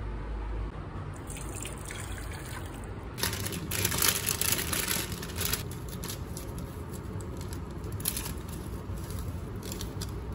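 Water bubbling in an electric cooking pot. Crackly rustles come through it, loudest a few seconds in, as instant-noodle packets are handled and a seasoning packet is shaken in.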